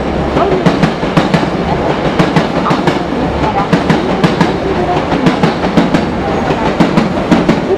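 A train running through the station, its wheels clacking rapidly and irregularly over rail joints above a steady rumble.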